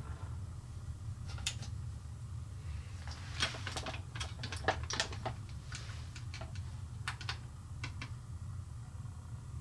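Light irregular clicks and taps of a 1/24 scale diecast model truck being handled: a pair about a second and a half in, then a run of them through the middle. A low steady hum lies underneath.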